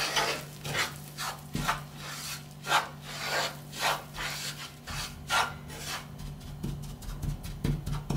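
A wooden spoon scraping and pushing across a nonstick frying pan in repeated strokes, stirring flour into melted butter to form a crumble. The strokes come roughly every half-second to second, then turn quicker and lighter near the end.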